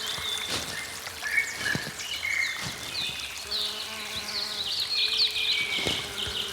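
Morning forest ambience: many birds calling at once with quick, high chirps and short whistles, over a steady low buzzing hum and a few soft clicks.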